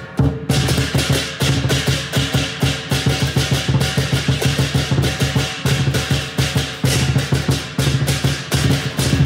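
Chinese lion dance percussion: a large lion drum beaten in a fast, driving rhythm, with pairs of hand cymbals crashing and a gong struck along with it.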